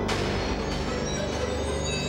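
Trailer music: a held low note under steady sustained tones, with no voice.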